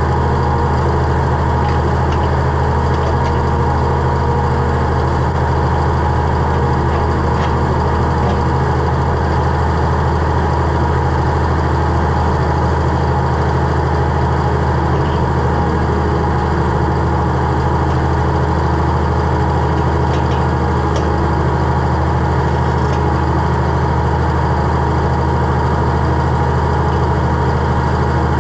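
Oliver 1855 tractor engine running steadily at an even speed.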